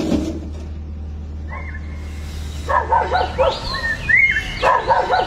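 Dog-like barks and yelps in a few short runs, starting about one and a half seconds in, over a low steady hum that stops about three and a half seconds in.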